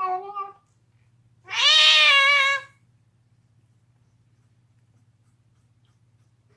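Cat yowling while chewing a bone. A short call ends about half a second in, then one loud, long yowl with a wavering pitch comes about a second and a half in. The owner wonders whether the cat's deafness has something to do with it.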